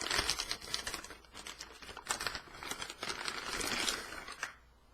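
Packaging being handled: rustling cardboard and plastic with many scattered clicks and taps, busiest about three to four seconds in.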